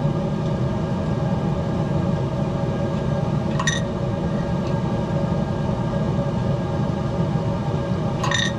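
Wood pellet smoker grill running with its dial on high, its auger motor and fan humming steadily as pellets are fed through the auger tube toward the fire pot. Two brief high-pitched sounds, about three and a half seconds in and near the end.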